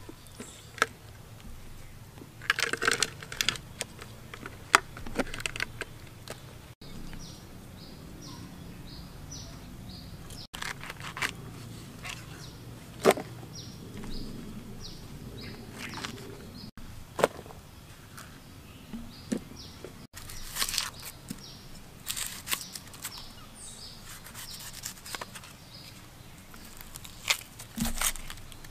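Scattered knocks, clicks and scrapes over a low steady hum, with the sound breaking off abruptly several times. Twice a run of short, evenly spaced faint high chirps or beeps sounds.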